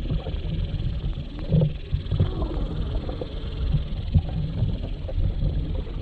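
Muffled underwater sound picked up through a GoPro's waterproof housing as it moves through the water: a continuous low rumble of water movement with irregular soft knocks.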